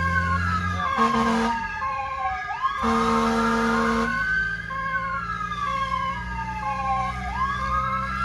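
Fire truck siren wailing, rising and falling in slow sweeps over a pulsing tone, with the truck's engine running underneath. There are two horn blasts, a short one about a second in and a longer one about three seconds in.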